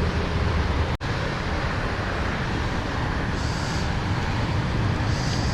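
Steady rumbling outdoor noise, heaviest at the low end, that cuts out for an instant about a second in.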